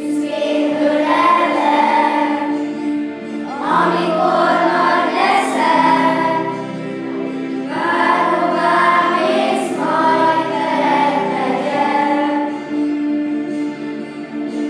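Children's choir singing a song in phrases of a few seconds, over a steady instrumental accompaniment.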